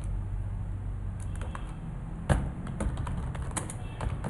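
Typing on a computer keyboard: a run of key clicks starting about a second in, with one louder keystroke near the middle.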